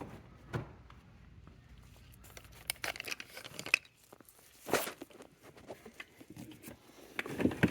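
Scattered light clicks, knocks and rustles of handling, with a sharper knock about five seconds in.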